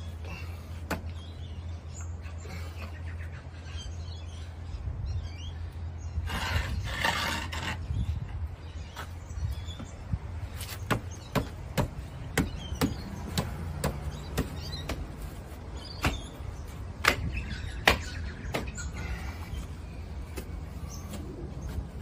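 A series of sharp, short taps about two a second through the middle stretch, over a steady low hum, with a brief burst of rustling before them.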